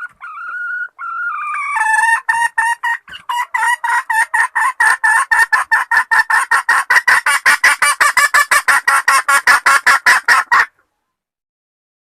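Junglefowl hen calling to solicit mating: a short drawn-out call, then a long run of rapid clucks, about four to five a second and quickening slightly, that stops abruptly.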